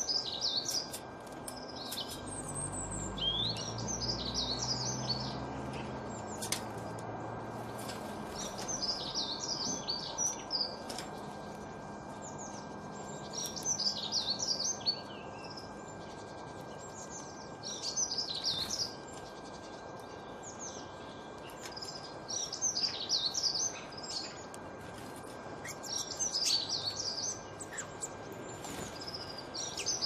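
Songbird singing in short, rapid, high warbling phrases repeated every few seconds, over a steady outdoor hiss. A low drone passes underneath during the first several seconds.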